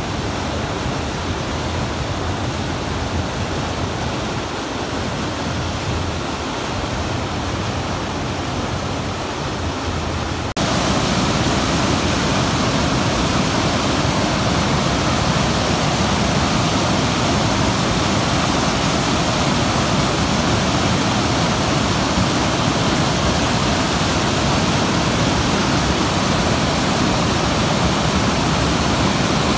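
Steady rush of white water pouring over boulders in a mountain river's rapids and small falls. About ten seconds in it steps suddenly louder, as the cascade is heard close up.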